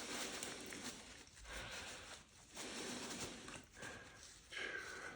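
Faint rustling of a cloth or paper towel wiping grease off a small bicycle hub spacer, in short stretches with brief pauses.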